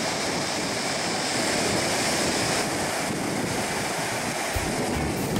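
Ocean surf breaking and washing up a sandy beach as a steady hiss, with wind on the microphone.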